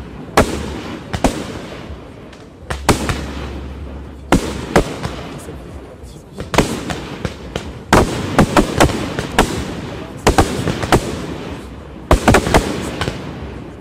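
Aerial firework shells bursting in quick succession: sharp bangs, each trailed by an echoing rumble, coming thicker and faster in clusters in the second half.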